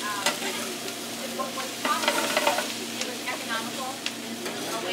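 Chopped cabbage and bacon fat sizzling in a hot steel sauté pan while being stirred with a metal ladle, with a few short clicks of the ladle against the pan.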